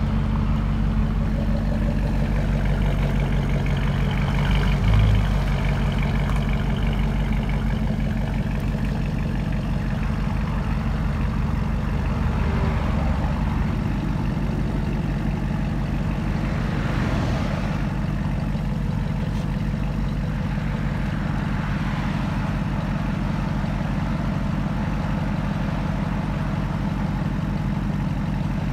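Ram 1500's 5.7-litre HEMI V8 idling steadily through a straight-piped true dual exhaust with an X-pipe and no mufflers, giving a deep, loud exhaust note. There is a brief low swell about five seconds in.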